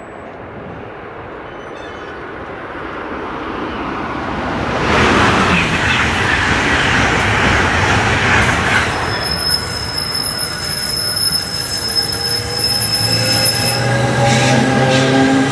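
NJ Transit train of Comet coaches rolling past the platform and picking up speed, its wheels clattering along the rails, growing louder over the first few seconds. A steady high-pitched wheel squeal comes in about two-thirds of the way through. Near the end a rising whine from the electric locomotive's traction motors sounds as the train accelerates.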